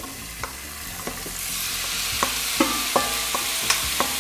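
Marinated beef chunks pushed from a stainless steel bowl into a hot frying pan with a wooden spoon. The pan starts sizzling loudly about a second in, over sharp knocks of the spoon on the metal bowl, some of which ring briefly.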